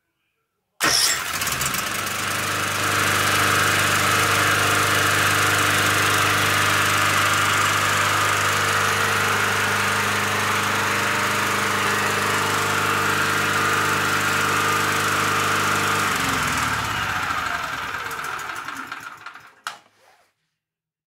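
A portable petrol generator's single-cylinder four-stroke engine is cranked by a retrofitted electric starter motor and catches almost at once, then runs steadily. About sixteen seconds in it is switched off and runs down to a stop, its pitch falling, with a click just before it goes quiet.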